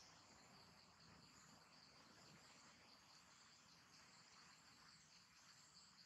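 Near silence, with a faint, steady high-pitched chorus of insects.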